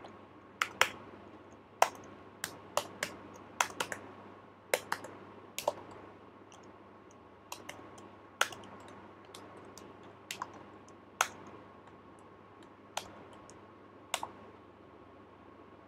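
Computer keyboard keys being typed in irregular strokes, thick in the first few seconds, then spaced out with pauses between single keystrokes.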